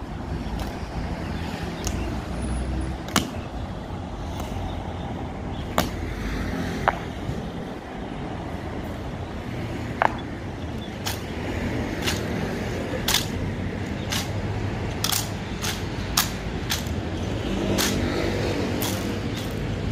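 Sharp clacks at a slow, even pace, about one a second, typical of an honor guard's measured ceremonial steps in hard-heeled boots, over a steady low rumble of traffic.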